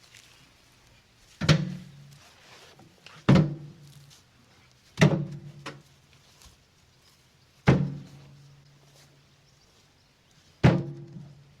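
Five heavy thunks at uneven intervals of two to three seconds, each with a short low ringing that dies away: cut firewood rounds being dropped or tossed down.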